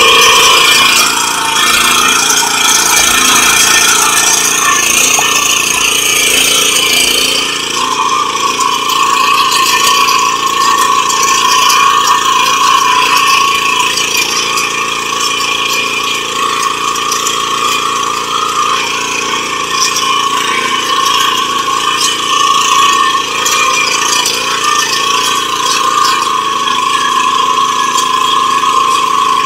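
Engine of a 7 hp rotary tiller (power weeder) running steadily, with mechanical rattle; its note shifts and settles about a quarter of the way in.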